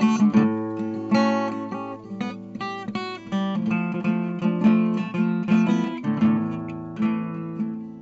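Background music: acoustic guitar, plucked and strummed.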